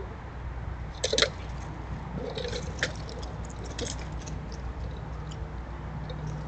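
Squirrels foraging and scrambling in dry seed shells and onto a hanging metal tube feeder: scattered sharp clicks and scratchy rustles, loudest as a close pair about a second in, over a low steady hum.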